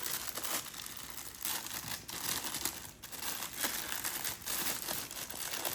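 Plastic packaging being handled, crinkling and rustling unevenly as an accessory is unwrapped.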